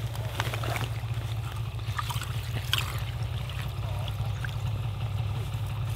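Water dribbling and sloshing in an ice-fishing hole as a smallmouth bass is lowered back into it and released, with a few soft splashes over a steady low hum.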